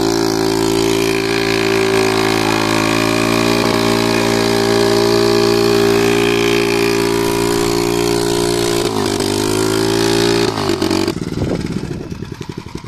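Small motorbike engine held at high, steady revs while the rear wheel spins on the road in a burnout. About nine seconds in, the revs drop. Near the end the engine winds down, its beats slowing and fading.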